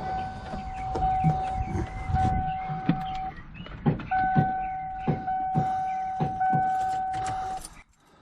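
Ford F-150's dashboard warning tone sounding steadily with the key on, in two long stretches with a brief break between them, over scattered clicks. No engine runs: the thumped starter still does not crank the truck.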